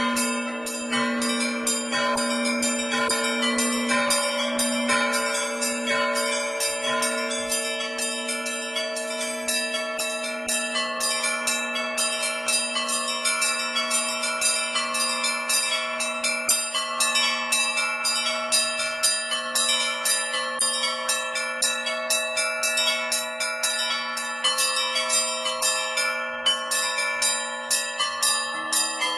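Orthodox church bells rung by one ringer: several smaller bells struck rapidly in a lively, rhythmic pattern while a deep bell rings on underneath.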